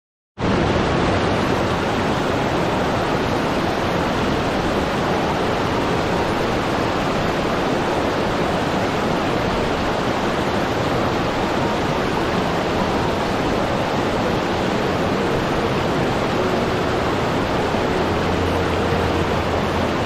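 Mountain waterfall cascading over rocks into a stony stream: a steady, dense rushing of falling water that starts abruptly a moment in.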